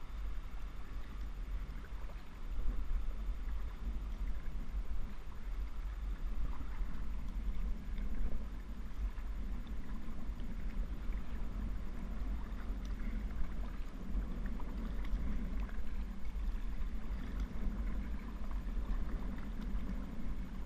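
Water sloshing and splashing around a kayak under way, with a heavy wind rumble on the microphone.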